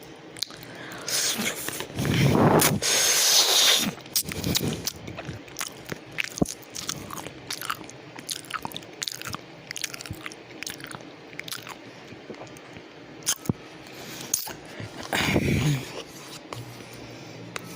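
A person eating chicken lo mein close to the microphone: wet chewing with many small clicks, and two louder, noisier stretches, one about two to four seconds in and one near fifteen seconds.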